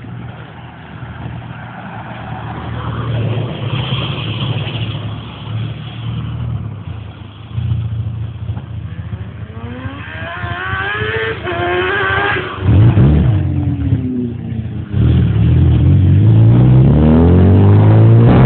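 2003 Suzuki GSX-R 750's inline-four engine through a full Arata exhaust, loud, its revs rising and falling several times. Over the last few seconds it makes a long, loud climb in revs.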